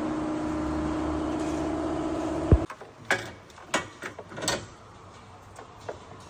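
A steady mechanical hum cuts off abruptly with a thump about two and a half seconds in, followed by a few sharp clicks and knocks.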